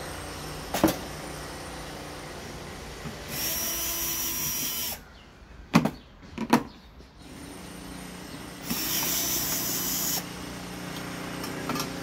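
Power drill running in two short bursts of about a second and a half each, with a high whine; two sharp knocks come between the bursts.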